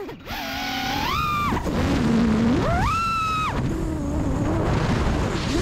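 FPV freestyle quadcopter's brushless motors (iFlight Cyber Xing 2207.5 1777kv), heard from its onboard camera: a whine that climbs sharply with each punch of throttle, holds high briefly and drops back, twice, with a third rise near the end, over a steady rush of air noise.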